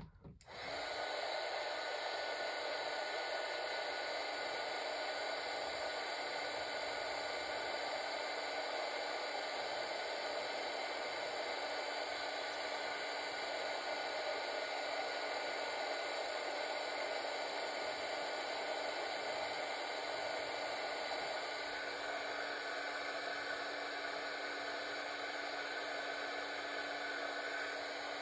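Craft heat embossing tool switched on about half a second in and running steadily, a fan whir and rush of hot air with a steady hum, melting embossing glaze.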